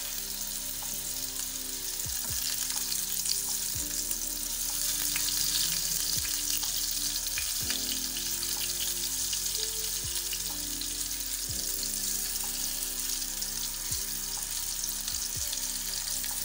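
Minced-meat kebab patties frying in shallow oil in a nonstick pan: a steady sizzle with constant fine crackling. Background music plays underneath.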